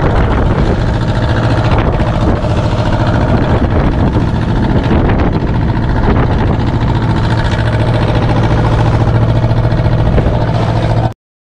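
A fishing boat's diesel engine running steadily with a low, even hum. The sound cuts off abruptly near the end.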